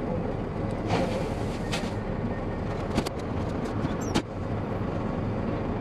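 Peterbilt 379 semi truck's diesel engine running with a steady low rumble. A few sharp clicks or knocks stand out, the loudest about three seconds in and just after four seconds, with a brief high squeak around the same time.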